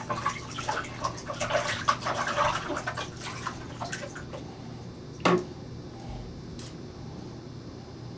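Water splashing and dripping in a bathtub as someone washes in it, busiest in the first few seconds, with a single sharp knock about five seconds in over a faint steady low hum.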